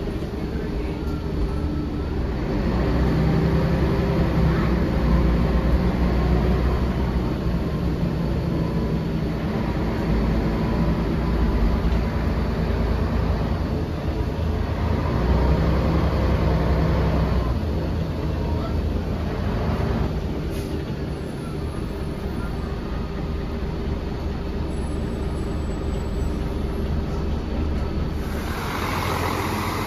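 Volvo B10L city bus heard from inside the passenger cabin while under way: its rear-mounted engine and drivetrain running with road noise, growing louder twice as the bus accelerates, with a brighter hiss near the end.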